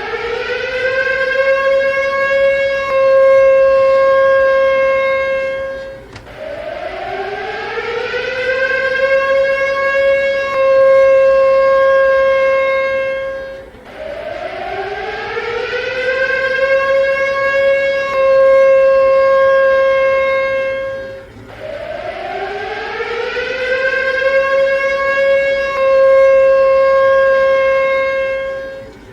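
A siren wailing in repeated cycles, about every seven and a half seconds: each wail rises in pitch over a couple of seconds, holds a steady tone, then dies away before the next one starts, about four times.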